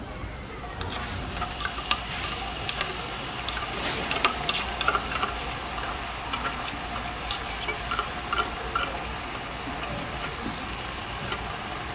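Food sizzling as it fries in a pan: a steady hiss with many small crackles and pops. It starts just after the beginning.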